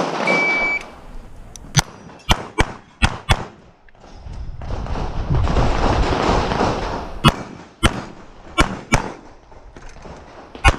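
Shot-timer start beep, then a CZ Shadow 2 pistol firing rapid shots, mostly in quick pairs: about five in a burst, then a longer noisy stretch with no shots, then more shots near the end.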